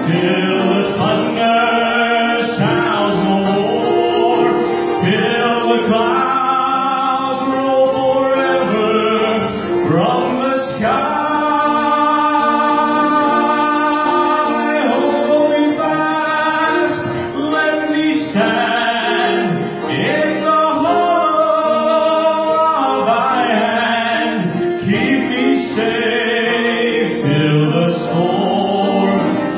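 A man singing a gospel song into a handheld microphone, holding long notes.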